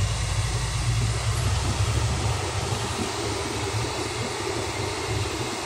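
Cab of a GMC truck rolling slowly, with a steady engine hum and road noise. The deepest rumble eases off about a second and a half in.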